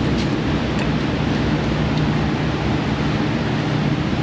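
Steady mechanical drone: an even rushing noise over a low hum, with a couple of faint light clicks in the first second.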